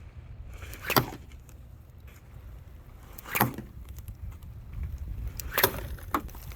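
Slung steel balls striking: four sharp knocks, the first three a couple of seconds apart and the last two close together near the end, over low wind rumble on the microphone.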